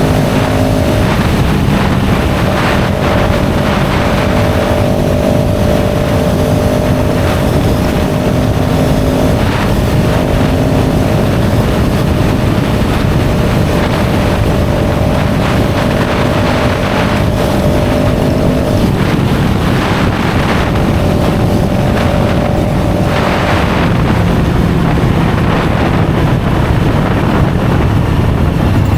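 CFMOTO 700CL-X Sport motorcycle's parallel-twin engine running through its stock exhaust, its note holding steady and shifting pitch a few times, with wind noise on the microphone.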